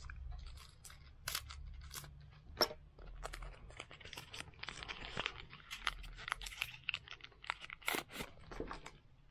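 Foil Pokémon booster pack (Brilliant Stars) being handled and torn open: irregular crinkling and crackling of the wrapper, with a few sharper crackles.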